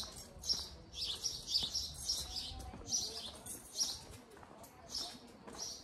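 Small songbirds chirping: quick, high twittering chirps in short bursts, again and again.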